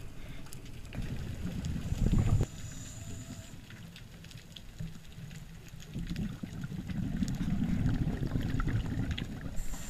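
Muffled underwater noise heard through a camera's waterproof housing: a low rushing of water that swells briefly about two seconds in and again for a few seconds from about six seconds, with scattered faint clicks.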